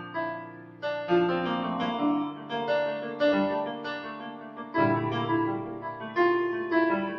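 Korg Pa700 arranger keyboard playing a piano-type factory sound: a slow melody over chords. Fresh bass notes and chords are struck about a second in and again near five seconds, and each fades as it rings.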